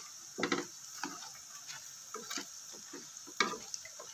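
Kuih getas dough pieces deep-frying in hot oil in a wok, a steady sizzle, while a cooking utensil stirs them and knocks against the pan, the sharpest knocks about half a second in and again near the end.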